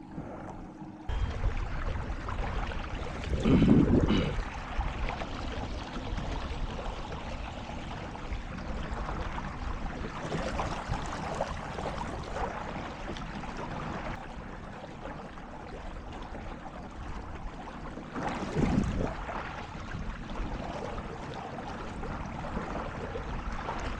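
Steady rush of water and wind as a kayak moves across a lake under a trolling motor, with two louder low gusts on the microphone, about four seconds in and again near nineteen seconds.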